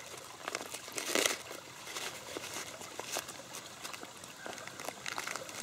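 Crinkling of plastic first-aid packets and small clicks as items are handled and sorted in a first-aid kit, with a louder rustle about a second in. A stream trickles steadily behind.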